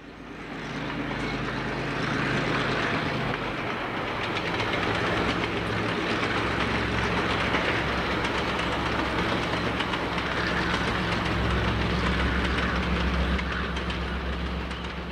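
A diesel locomotive hauling a train, its engine giving a low steady drone under the rumble of the wagons rolling on the rails. The sound fades in over the first second.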